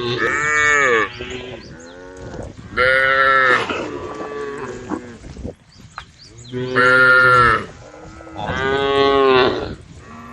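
Cows mooing: four long calls a few seconds apart, each rising and then falling in pitch.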